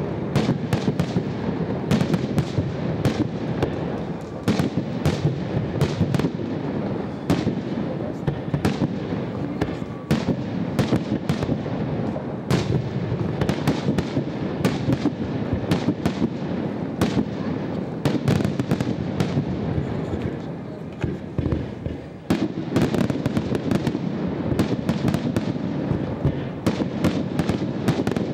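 Fireworks display: aerial shells bursting in a rapid, continuous barrage, many bangs a second over a steady rumble, with crackling. It eases briefly a little after twenty seconds in, then picks up again.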